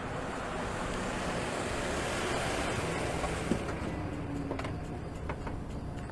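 Steady rushing noise like wind, swelling a little in the first half, with a few faint clicks near the end.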